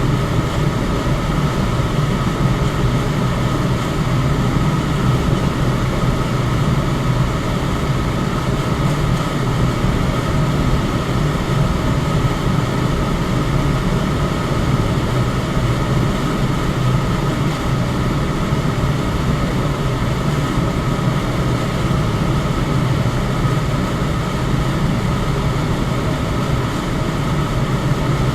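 Electric fan running at a steady speed: an even rush of air over a low hum, with a faint steady higher tone.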